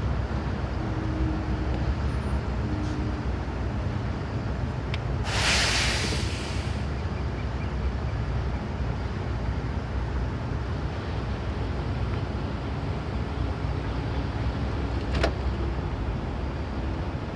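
Vehicle engines rumbling steadily in a slow-moving traffic queue. About five seconds in there is a loud burst of hiss lasting a second and a half, and near the end a sharp click.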